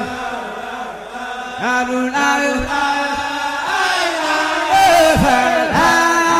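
Background music: a chanted vocal melody with sliding pitches, carried on steadily.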